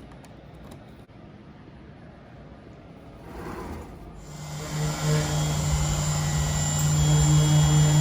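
Optimill F80 CNC milling machine starting its run. About four seconds in, the machine comes up to a steady hum with a high whine over it, and it grows louder toward the end.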